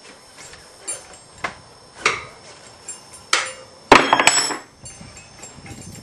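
Scattered sharp knocks from handling a motorcycle wheel and knobbly tyre on a wooden workbench, then a loud metallic clatter with a brief ring about four seconds in, as a steel tyre lever is dropped onto the bench.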